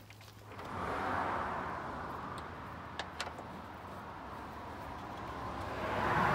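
Cars passing on a nearby road: tyre and road noise swelling up, easing off, then swelling again near the end. A couple of faint clicks about three seconds in.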